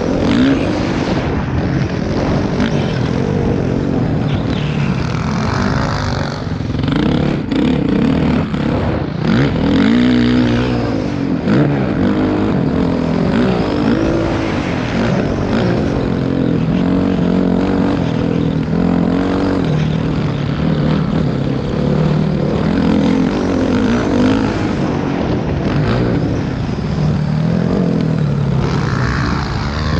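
Motocross bike engine heard from on board, its pitch rising and falling over and over as the rider accelerates and backs off around the dirt track.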